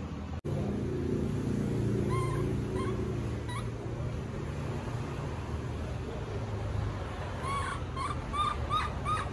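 Baby macaque crying with short, high squeaky calls that rise and fall, a few scattered at first and then a quick run of about six louder ones near the end, over a steady low hum.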